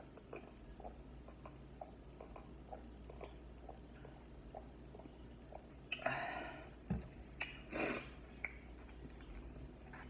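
A person chewing food close to the microphone, with small mouth clicks about three times a second. About six seconds in, and again near eight seconds, come two loud breathy rushes of air from the mouth, with a thump between them.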